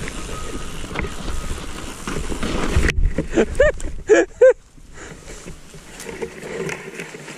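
Mountain bike rolling down a snowy trail, a steady rumble of tyres and bike rattle. About three seconds in, the sound goes suddenly muffled and a rider's voice gives four short rising-and-falling cries, followed by quieter rolling.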